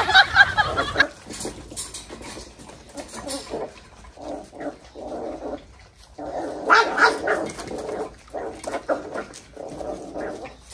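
Corgi puppies whining and yelping in short pitched bursts. The calls are loudest in the first second and again about seven seconds in.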